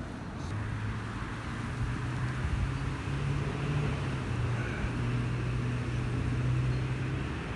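An engine running steadily, its low hum stepping slightly up and down in pitch, over an even hiss.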